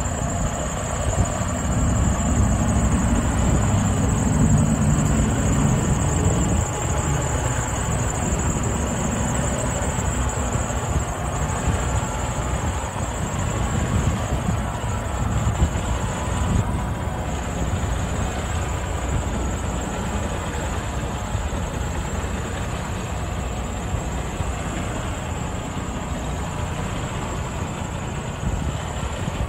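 Freightliner Cascadia day-cab tractor's diesel engine idling steadily, a little louder during the first several seconds.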